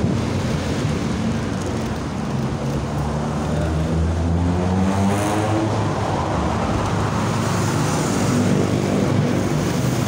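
Road traffic heard from a moving motorbike: a steady rumble of engines and tyres. An engine note climbs in pitch about three to six seconds in as a vehicle accelerates.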